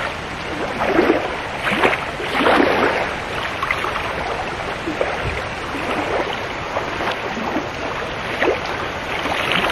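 Fast floodwater of a swollen river rushing steadily, with repeated short splashes and sloshing as a cast net is hauled in through the water by someone wading.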